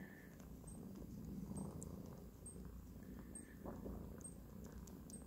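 British Shorthair mother cat and her nursing kitten purring together: a faint, steady low rumble.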